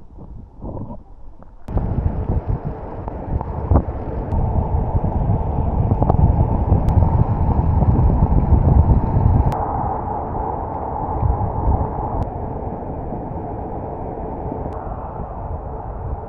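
Wind buffeting the microphone of a bicycle rider coasting downhill at speed: a loud, steady rush with a heavy low rumble that starts suddenly about two seconds in and swells in the middle, with a few faint ticks.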